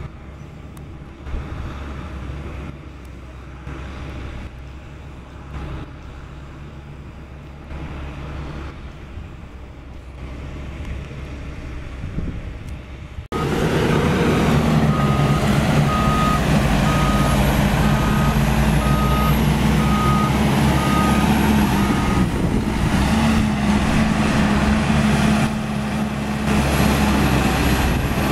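CAT D5K2 XL crawler dozer's diesel engine running under load as it pushes dirt, quieter at first and then much louder and closer from about halfway through. Soon after the jump, the reversing alarm beeps at a steady pace for several seconds as the dozer backs up.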